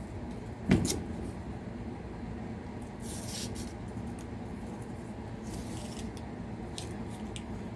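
A D2-steel pocketknife blade slicing through a sheet of paper, two short hissing cuts, with a sharp knock about a second in and a few light clicks near the end.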